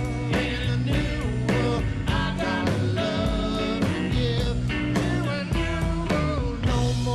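Rockabilly band playing live: electric guitar lines over double bass and drums keeping a steady beat.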